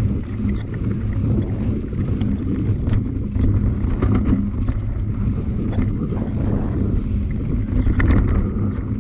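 Steady wind rumble buffeting the microphone during a fast ride, with scattered clicks and knocks, a cluster of them about eight seconds in.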